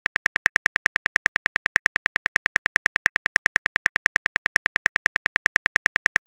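Texting-app keyboard typing sound effect: a rapid, even run of identical clicks, about ten a second, as a text message is typed out letter by letter.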